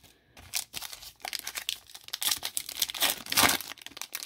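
Foil wrapper of a Panini Absolute Football retail card pack crinkling in the hands as it is torn open: a dense run of crackles starting about half a second in, loudest a little after three seconds.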